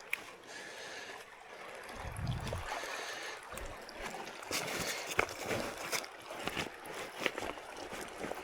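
Shallow creek water trickling and splashing, with a short low thump about two seconds in and scattered clicks.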